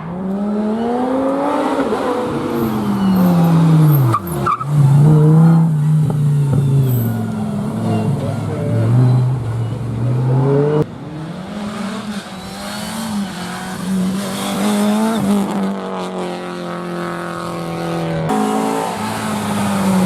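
Rally car engines revving hard, their pitch climbing and dropping again and again with gear changes and lifts off the throttle, several cars in turn, with the sound switching abruptly between them a few times.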